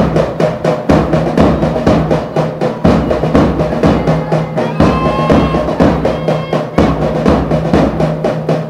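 Marching drums: bass and snare drum beating a steady march rhythm, about two beats a second.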